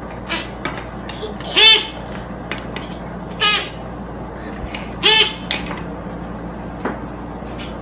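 A hunting call on a lanyard, blown into three times in short honks about two seconds apart, each rising and then falling in pitch, with small handling clicks between.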